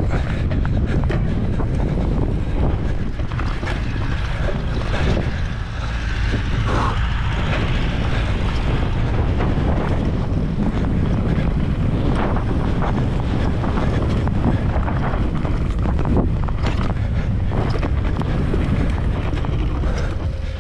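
Wind buffeting the microphone of a mountain bike's point-of-view camera at speed downhill, over the rumble of knobby tyres on dirt and grass, with frequent short knocks and rattles as the bike goes over bumps.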